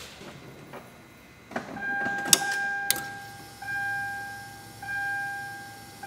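A few sharp clicks as the ignition key is turned, then a car's electronic warning chime dinging steadily, each ding slowly fading before the next, about once a second.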